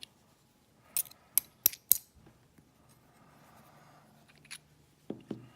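Small metal tools clicking against an old Yale pin-tumbler lock cylinder while its fifth pin stack is taken out: four sharp metallic clicks in quick succession about a second in, one more click near the end, then two duller knocks.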